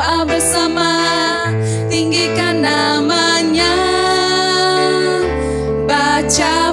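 Two female voices singing a Malay children's worship song into microphones over an instrumental backing track, with held bass notes that change every second or two.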